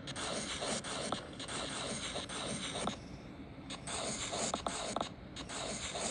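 Scratchy rubbing noise in uneven strokes with short gaps between them, and a few sharp clicks.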